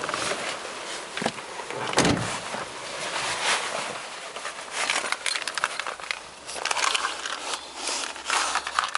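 Car keys jangling and clicking in a gloved hand, with rustling handling noise and a sharp knock about two seconds in.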